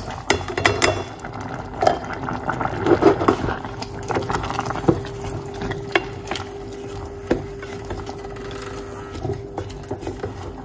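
Wet quinoa tipped from a mesh sieve into a stainless steel pot of simmering liquid, then stirred with a wooden spoon: splashing and bubbling, with occasional knocks of the spoon and sieve against the pot. A steady low hum sets in about a third of the way through.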